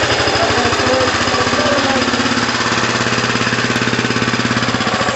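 Small engine running on a Pantone-style GEET fuel processor, fed a fuel-and-water mix, idling steadily with a fast, even chugging beat right after starting up.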